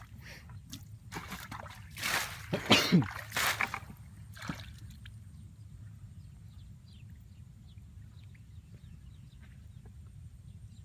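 Shallow water splashing and sloshing as someone gropes for fish by hand. The loudest splashes come in a short cluster about two to three and a half seconds in, followed by faint trickling and small drips.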